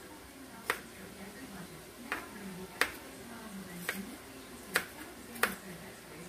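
Kitchen knife clicking against the cutting surface as food is cut by hand: six sharp, separate strikes at uneven spacing, roughly one a second.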